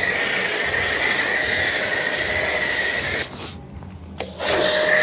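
Shakti S5 pressure washer spray gun spraying with a loud, steady hiss and a faint whine. It sprays for about three seconds, stops, then sprays again briefly about four seconds in.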